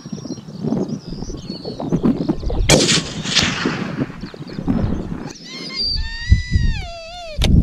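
A single rifle shot about three seconds in, its report rolling away for about a second, with wind buffeting the microphone before it. Near the end a high, wavering whine starts up.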